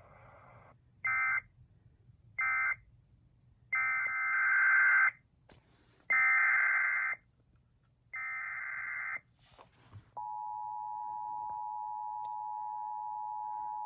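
Emergency Alert System tones: two short SAME data bursts, then three harsh screeching SAME header bursts of about a second each, then the steady two-tone EAS attention signal held about four seconds. The bursts mark the end of one alert and the header of the next, and the attention tone announces the coming warning.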